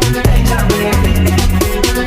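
Background music: electronic dance track with a steady beat and heavy bass.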